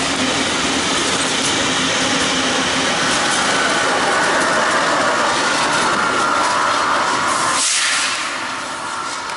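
A string of Union Pacific diesel locomotives running light passes close by: steady engine drone with wheels rolling and clattering over the rail joints. A little before the end the sound cuts abruptly to a quieter, more distant locomotive approaching.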